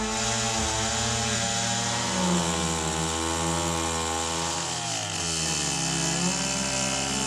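Gasoline chainsaw running as it cuts into an elm trunk; the engine's pitch wavers and sags about five seconds in, then climbs again.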